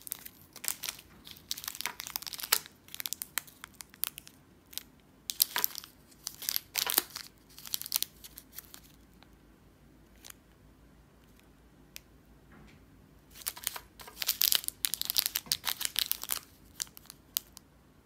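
Crimped plastic wrappers of individually wrapped hard candies crinkling as they are handled and turned in the fingers. The crinkling comes in three bursts, with a few seconds of near quiet and single clicks in the middle.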